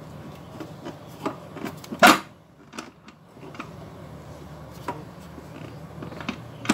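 Kitchen equipment being handled: scattered light clicks and knocks, with one louder clatter about two seconds in, over a faint steady low hum. No mixer motor is running.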